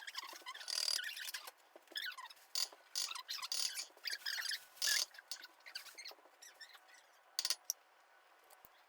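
Irregular squeaky scrapes and clicks of kitchen utensils and containers being handled, busiest for the first six seconds, with two sharp clicks about seven and a half seconds in.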